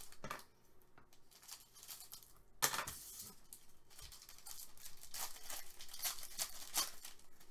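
Foil pack of Upper Deck SP Game Used hockey cards being torn open and crinkled by hand, with one sharp crackle of the foil about two and a half seconds in.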